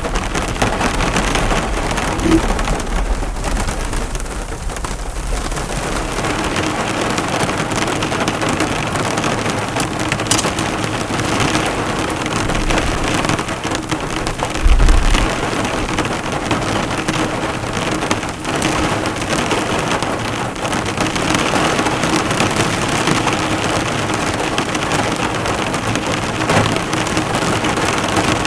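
Heavy rain falling steadily on a car, the drops drumming on the bonnet, with a low rumble in the first few seconds and a brief low thump about halfway through.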